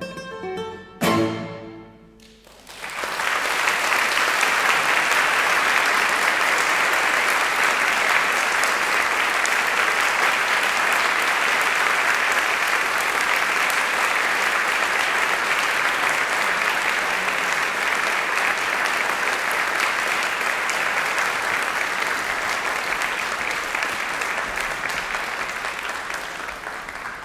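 Guitar and string quartet play their last notes, ending on a loud final chord about a second in. After a brief pause the audience applauds steadily, easing off a little near the end.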